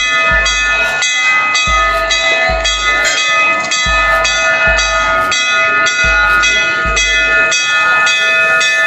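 Loud music with a quick steady beat, deep bass thumps and sustained ringing tones.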